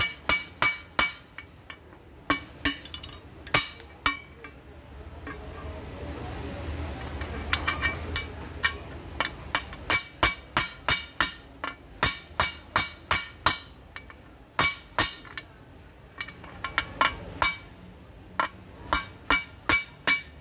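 Hammer striking a steel punch held against a lock, in quick runs of ringing metallic clinks, about two to three blows a second. There is a pause of a few seconds about a quarter of the way in. The lock is being forced open without a key.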